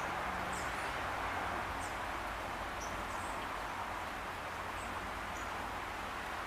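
Steady hiss of falling rain, with a few faint, short high chirps from small birds scattered through it.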